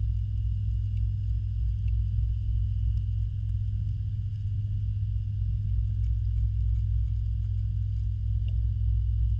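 Steady low rumble and hum of a backyard pond's pump and filtration, carried through the water to an underwater camera. Two faint steady high tones run above it.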